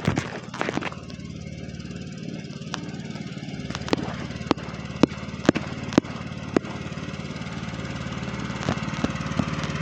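Riding lawn mower's engine running steadily and slowly getting louder, with a series of sharp clicks or knocks, most of them between about four and seven seconds in.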